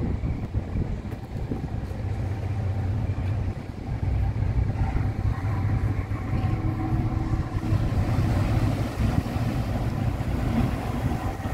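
An engine running with a steady low rumble and a faint hum over it.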